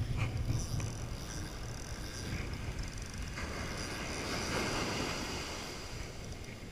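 Surf washing on the beach, with wind buffeting the microphone; a wave rushes in and swells from about three and a half to five and a half seconds in.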